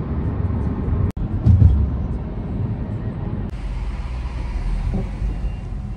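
Steady low rumble of road and engine noise inside a moving car, broken by a brief dropout about a second in where the footage is cut.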